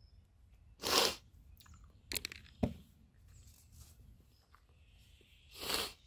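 Two short, sharp breaths close to the microphone, one about a second in and one near the end, with a few small clicks and a dull knock between them.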